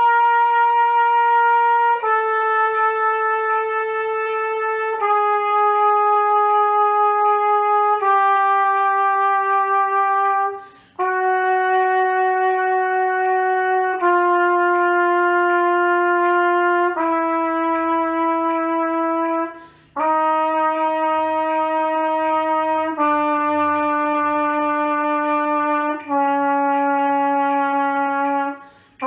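Trumpet playing a descending chromatic scale in slow whole notes, each held about three seconds and a half step lower than the last, with three short breaks for breath. A metronome ticks steadily behind it.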